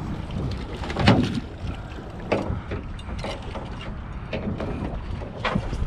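Steady low rumble aboard a small fishing boat, with a handful of knocks and clatters on deck, the loudest about a second in.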